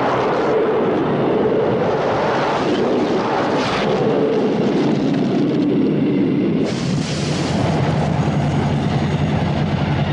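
A loud, steady rumble of noise from a film's sound-effects track, without a clear beat.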